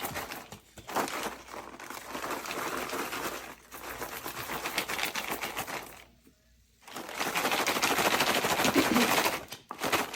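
Popcorn popping in a pot on a stovetop: a dense, rapid run of pops. The popping drops out briefly about six seconds in, then comes back louder.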